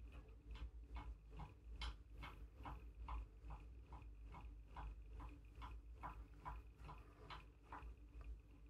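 Faint, regular ticking, about two to three ticks a second, over a low steady hum.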